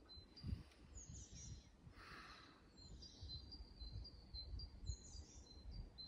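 Small birds chirping, a short high chirp repeated many times with a few quick falling notes, over an uneven low rumble of wind on the microphone. A brief soft rustle about two seconds in.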